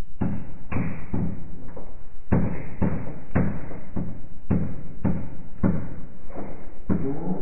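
Background music with a steady percussive beat of about two strokes a second.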